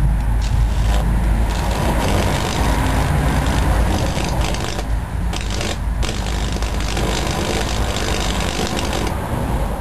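High-voltage arc from a 1000-watt microwave oven transformer burning across a circuit board: a loud buzzing, crackling arc over a steady low mains hum. The crackle flickers and thins out for a moment a few times.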